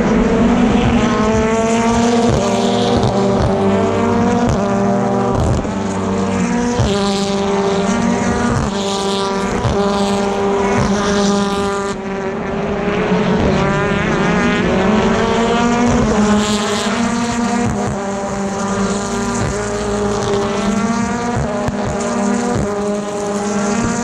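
A pack of BTCC touring cars with 2.0-litre turbocharged four-cylinder engines accelerating hard one after another. Each engine note rises steeply, then drops back at an upshift, again and again as car after car goes by.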